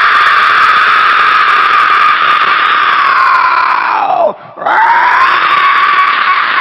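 King Kong–style roar, a loud screaming cry. The first sweeps up, holds for about four seconds and drops away; right after a short break a second one sweeps up and holds.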